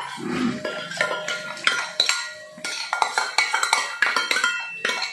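A steel spoon scraping and knocking against stainless-steel bowls and a pot: a quick, uneven string of metallic clinks, many ringing briefly.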